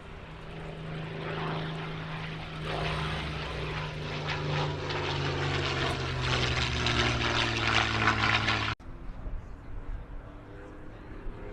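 Packard Merlin V12 of a P-51 Mustang passing low, growing louder as its pitch slides slowly down. About three-quarters through it breaks off abruptly to a quieter, more distant engine sound.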